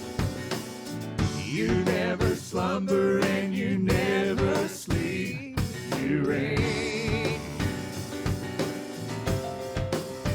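A live worship band playing a gospel song, with a steady drum-kit beat under guitar and a wavering melody line, in an instrumental stretch between sung lines.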